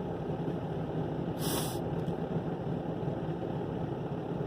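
Excavator's diesel engine running steadily, with a brief hiss about a second and a half in.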